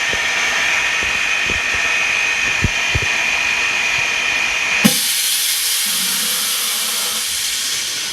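A screen-refurbishing vacuum laminating and bubble-removal machine running through its bubble-removal stage. It makes a steady mechanical whir and hiss with a thin high whine and a few light knocks. About five seconds in the sound changes abruptly to a brighter, airier hiss.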